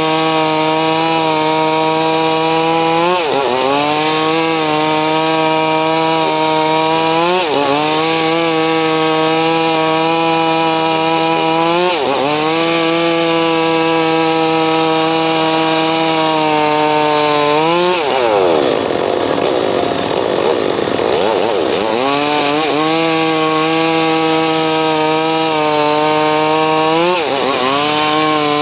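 Homemade 'srekel' power saw cutting mahogany. The motor runs steadily, and its pitch drops sharply and climbs back about every four seconds as the blade bites into the wood under load, with one longer, deeper bog-down about two-thirds of the way through.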